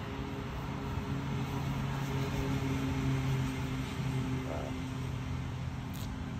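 An engine running with a steady low hum that grows louder about three seconds in and then eases off, over outdoor background noise. A brief click near the end.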